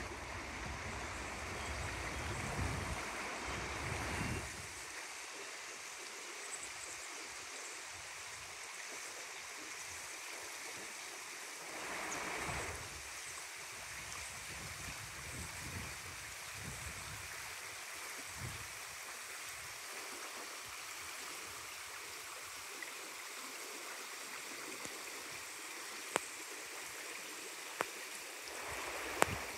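A small stream rushing steadily over rocks, running fast after the start of the rainy season. Low rumbling swells come and go near the start and about twelve seconds in, and a few sharp clicks sound near the end.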